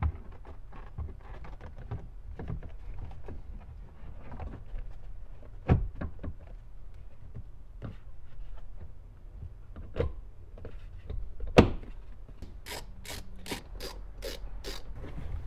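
Plastic A-pillar trim panel of a Ford F-150 being pressed back onto the pillar by hand: rubbing and small plastic clicks, with sharp knocks about 6, 10 and 11.5 seconds in, the last the loudest. Near the end comes a quick run of about eight sharp clicks.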